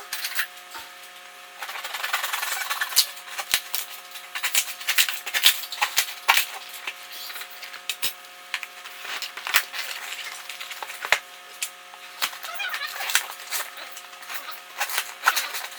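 Irregular clicks, taps and light rattles of small hardware and parts being handled, over a steady low hum.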